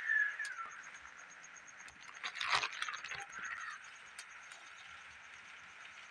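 Chickens calling: a short call at the start and a louder squawk about two and a half seconds in, over a steady high buzz.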